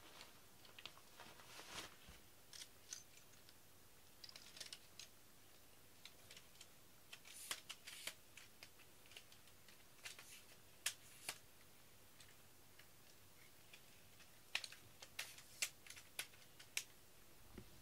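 Faint, irregular small clicks and ticks in uneven clusters, the sharpest around the middle and near the end.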